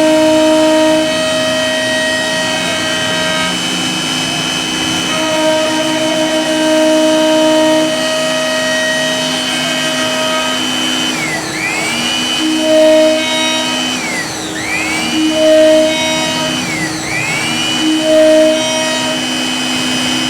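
CNC wood router carving a pattern: a steady high spindle whine over lower motor hums that switch on and off as the machine moves. In the second half the whine dips in pitch and climbs back three times.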